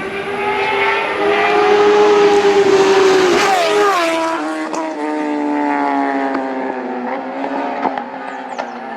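Road-racing motorcycle at full throttle passing close by, its engine note dropping sharply as it goes past about three and a half seconds in, then fading lower as it pulls away.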